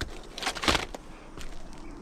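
Short scraping and crunching sounds from work on a roof shingle, in a quick cluster about a third of the way in.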